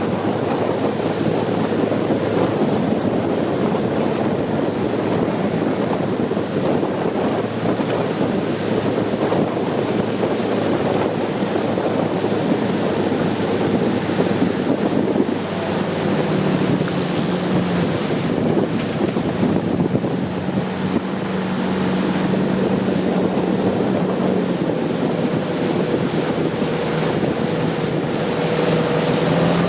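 Long-tail boat under way: its engine runs steadily under a rush of water along the hull, with wind buffeting the microphone. About halfway through, the engine's note comes through as a steadier, clearer hum.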